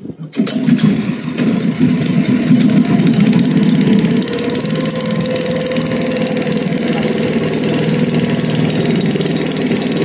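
Motor boat's engine starting up suddenly and running steadily, its note rising a little about four seconds in and then holding.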